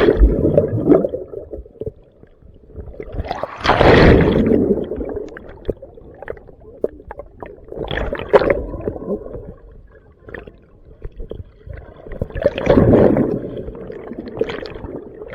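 Ocean waves washing in and drawing back, with two louder surges, one about four seconds in and another near the end.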